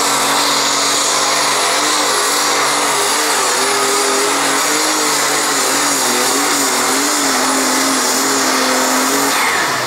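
Methanol-fuelled, turbocharged super stock pulling tractor engine at full power under load, dragging the weight sled down the track on a full pull; the engine note wavers up and down as it fights the sled, easing slightly right at the end.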